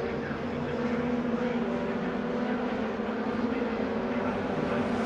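Racing pickup trucks' engines running at speed on the circuit as a pack goes by, heard as a steady, even drone.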